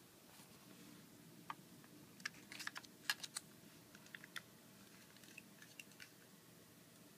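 Laptop keyboard keys being tapped: a string of light, irregular clicks, bunched most closely about halfway through.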